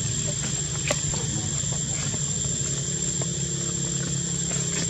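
Steady low engine-like drone running throughout, with a constant thin high-pitched tone above it and a single sharp click about a second in.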